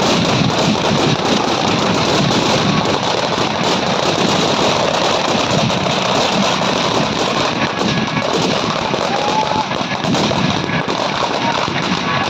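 Firecrackers packed into a burning Ravana effigy going off in a rapid, unbroken crackle of small bangs.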